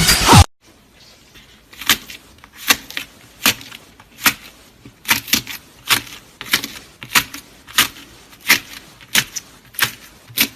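Slime being pressed and worked by hand, giving sharp, crisp pops and clicks about every two-thirds of a second, some in quick pairs. Dance music cuts off about half a second in, before the pops begin.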